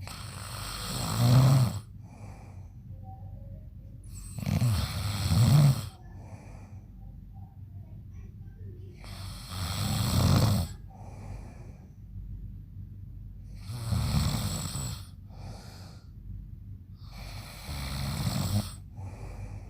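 A man snoring loudly in his sleep: five snores about four seconds apart, each about a second and a half long. Each is followed by a shorter, fainter breath.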